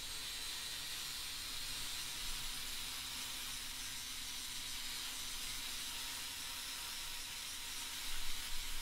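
DeWalt angle grinder grinding down a lump of weld on steel: a steady hiss of the disc on the metal over the motor's whine, with a few slightly louder scrapes near the end.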